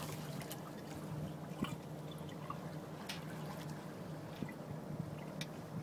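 Water trickling and lapping against a slowly moving sailing boat's hull in light wind, with small irregular drips and splashes. A steady low hum runs underneath.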